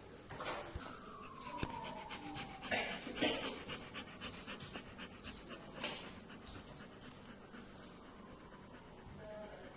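Dog panting quickly, with a long falling whine about a second in.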